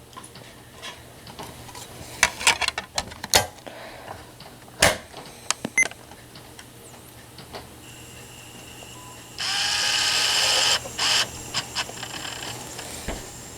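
Sony D-E220 CD Walkman being handled as a disc goes in: a run of sharp plastic clicks, then a burst of whirring noise lasting about a second, about ten seconds in, followed by a few more clicks.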